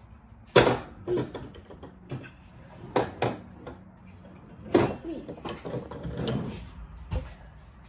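A series of irregular sharp clicks and knocks, about eight, the loudest a little over half a second in.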